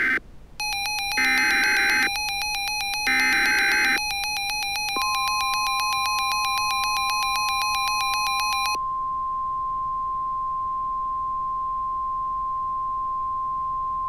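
Emergency Alert System SAME header: three short bursts of screeching digital data tones, the first already under way, ending about 4 seconds in, with a rapidly pulsing buzzy electronic beep running alongside until nearly 9 seconds. About 5 seconds in, the steady 1050 Hz NOAA Weather Radio warning alarm tone starts and holds one pitch to the end.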